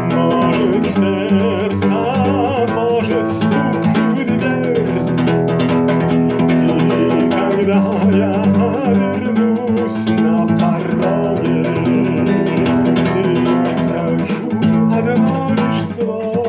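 Instrumental guitar music with bass: steady guitar chords under a wavering melody line, with no words sung.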